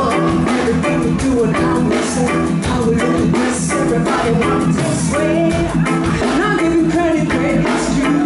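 Live reggae band playing with a vocal group singing into microphones, over a steady beat.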